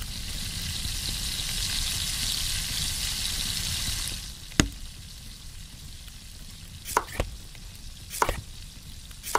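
Food frying in hot oil, a dense sizzle that cuts off suddenly about four seconds in. After it come a few short, sharp clicks.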